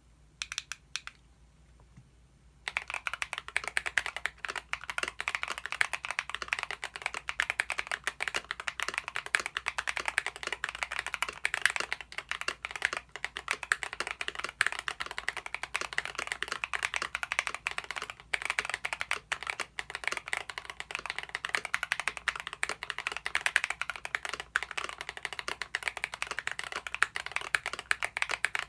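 Fast continuous typing on a custom GMMK Pro mechanical keyboard with lubed Akko Lavender switches, an aluminium plate and PBT keycaps, giving rapid clacky keystrokes. A few keystrokes come in the first second, then a short pause, and steady fast typing starts about three seconds in.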